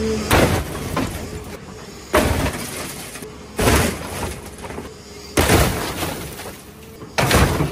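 An excavator bucket crushing the roof and cab of a Mercury Mountaineer SUV. Its sheet metal crunches and its windshield and window glass shatter in about five loud crashes, roughly one every one and a half to two seconds.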